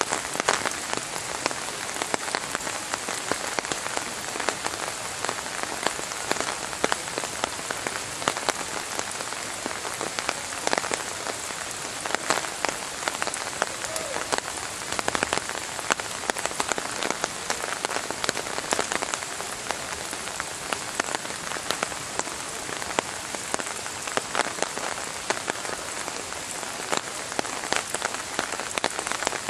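Steady rain falling, a constant hiss dotted with many sharp hits of single drops close by.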